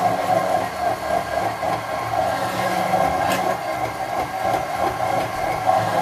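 Braun immersion blender motor running steadily in a bowl, emulsifying oil into a tuna sauce.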